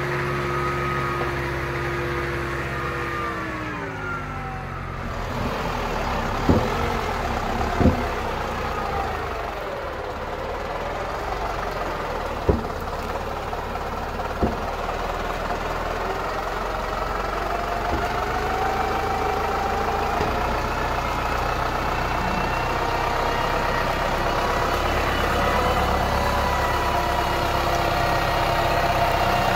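Same Argon 80 tractor's diesel engine running under way: the revs drop about four seconds in, a few sharp knocks come through over the next ten seconds, then the engine pitch climbs slowly and steadily.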